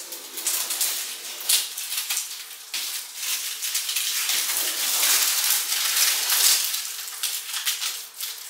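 Irregular rustling with many small clicks and rattles, running on without a break.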